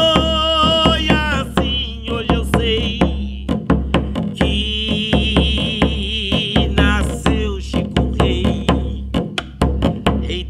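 A man singing long, wavering held notes without clear words over an even beat on a large two-headed congado drum struck with a stick.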